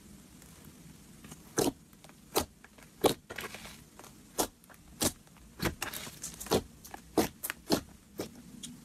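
Green glitter slime squeezed and poked with fingers, giving a run of sharp pops and clicks, about a dozen at uneven intervals.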